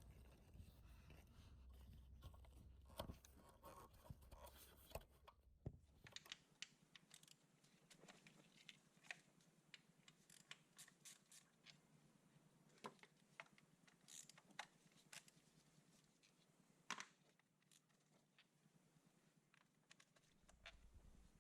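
Near silence broken by faint, scattered clicks and light scratching, as small parts or tools are handled. A low hum stops about six seconds in.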